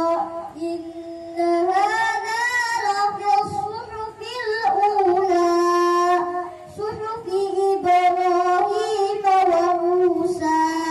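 A young girl's solo voice, amplified through a handheld microphone, singing long held notes that waver and bend in pitch, in phrases with short breaks between them.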